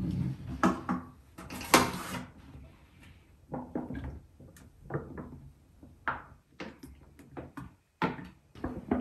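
Plastic detergent bottle and refill pouch handled on a washing machine's plastic top: a quick run of knocks and handling noises, loudest about two seconds in, then scattered light taps and knocks.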